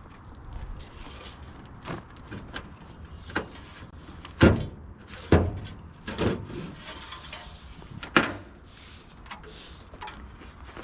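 Wooden beehive boxes being handled and set down: a series of knocks and bumps, about seven of them, the loudest about four and a half seconds in.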